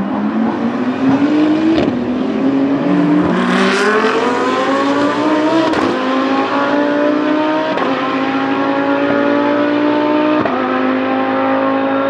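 GT3 race car engine accelerating hard through the gears: the pitch climbs and then drops at each quick upshift, about five times, and each gear pulls longer than the last.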